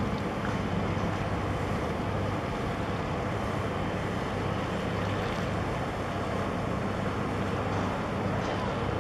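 Steady low drone of ship engines, mixed with wind rushing on the microphone.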